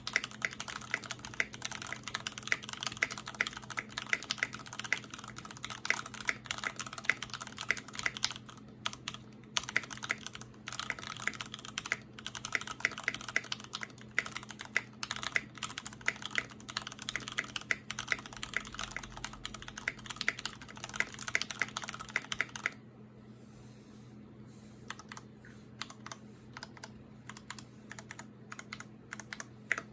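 Fast, continuous typing on a custom acrylic-case GOK 7V mechanical keyboard with linear MX Black switches on 62 g springs, an aluminium plate and GMK keycaps: a dense clatter of keystrokes. About three quarters of the way through it drops to scattered, softer key presses. A steady low hum runs underneath.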